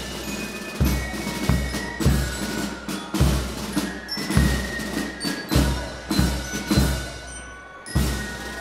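Marching band drums playing a steady march beat: bass drum strokes about every 0.6 seconds with snare drum, and short high ringing notes of mallet percussion over them. The playing dips briefly a little past seven seconds, then the beat resumes.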